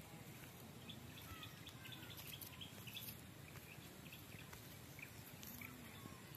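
Faint background noise with scattered short, high bird chirps.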